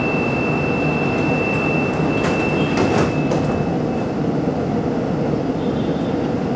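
Door-closing warning tone aboard a ČKD Tatra RT8D5M light rail car: a steady high beep that stops a little past halfway, with the sliding doors clunking shut a couple of seconds in, over the car's steady hum.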